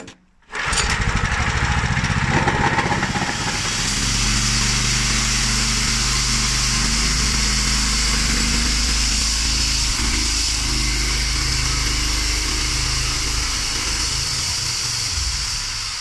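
The homemade band sawmill's small engine starts abruptly about half a second in, picks up speed over the next few seconds and then runs steadily, with a steady high hiss over it.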